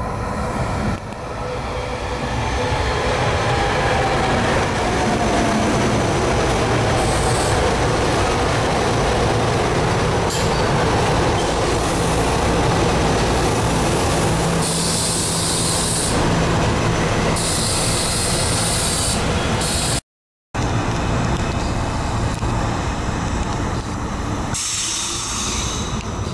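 SEPTA GE Silverliner IV electric multiple-unit trains running along the track, a steady rumble of wheels on rail. A thin whine falls slowly in pitch during the first several seconds. Bursts of hiss come later, with a brief total dropout about 20 seconds in.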